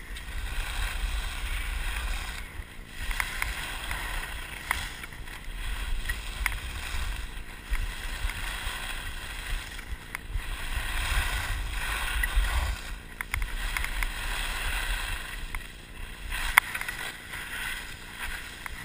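Skis hissing and scraping across packed snow, swelling and fading every second or two, over a low rumble of wind on the camera microphone. A sharp knock near the end.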